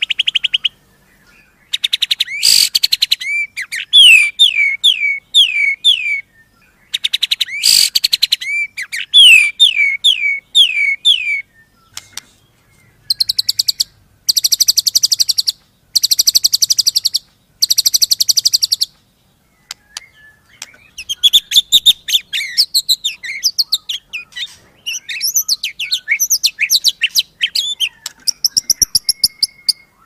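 White-rumped shama singing a varied song: series of clear falling whistled notes, then four harsh buzzy notes about a second each, then a fast run of varied chattering notes near the end, with short pauses between phrases.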